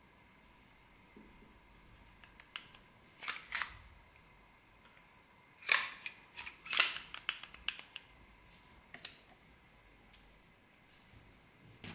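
Sharp metallic clicks and clinks from a metal lightsaber hilt being handled and turned in the hands. A pair of louder clicks comes about three and a half seconds in, and a cluster of them about six to seven seconds in.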